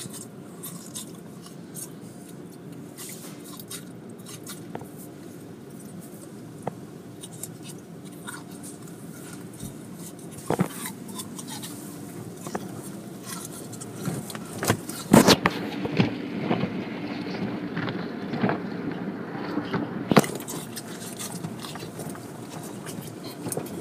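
Automatic car wash heard from inside the car: a steady low hum under water spray and the wash's cloth strips and brushes slapping and scraping over the windshield and body. The hits grow louder from about halfway, with the heaviest thumps around fifteen and twenty seconds in.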